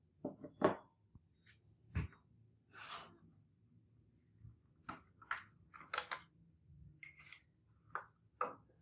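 A glass laboratory beaker and a large plastic bottle of water set down on a bench: a series of light knocks and clinks, the heaviest with a dull thud about two seconds in, and a brief plastic rustle just before three seconds.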